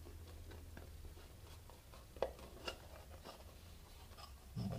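Faint rubbing and handling noises as a section of soft rubber boot is worked by hand to force a glass lens into it, with scattered small clicks; the loudest is a sharp click about two seconds in, followed by another.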